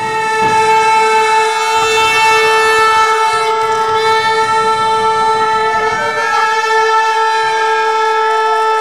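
A horn blowing one long, unbroken note at a steady pitch, loud over faint wavering background sounds.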